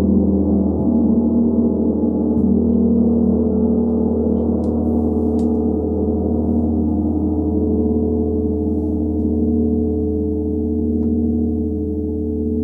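Large hammered Tibetan gong struck with a soft mallet and left to ring: a dense, sustained wash of many overtones that holds steady in loudness while its tones slowly shift and swell.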